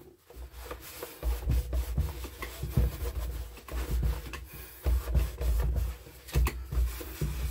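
Hand-wiping and handling of a gas chainsaw's dirty plastic housing: irregular rubbing and scuffing, with short knocks and low bumps as the saw shifts on the wooden bench.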